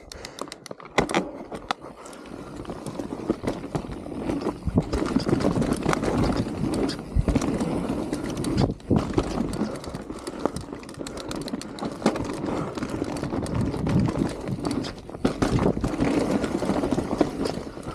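Mountain bike descending a dirt and rock forest trail: the tyres rolling over dirt and stones make a steady rough noise, broken by frequent clicks and knocks from the bike rattling over bumps. The noise drops out briefly about halfway.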